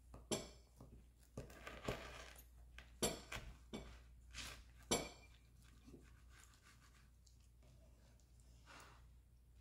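Serrated knife sawing through the crisp crust of a berry tart and tapping on a bamboo cutting board: a run of sharp crunches and taps in the first five seconds, then fainter scraping.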